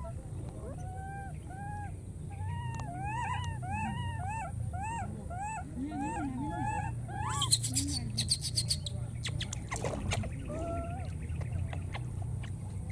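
Baby macaques crying with a series of short, arched calls, two or three a second, for several seconds. Just past the middle comes a quick run of sharp clicks, then a few more cries.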